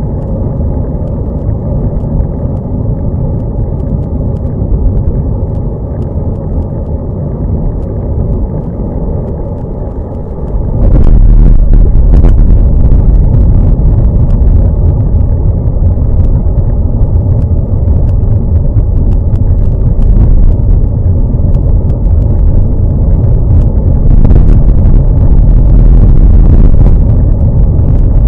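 Wind buffeting and road rumble on a bicycle-mounted camera riding on a wet road, a loud steady low rumble that jumps up in level about a third of the way in.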